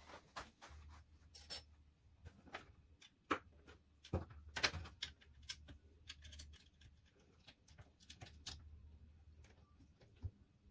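Irregular metallic clicks, taps and clinks of hand tools and small fittings being worked at the bed of a metal lathe while a DRO scale is mounted, with a few louder knocks, over a faint low hum.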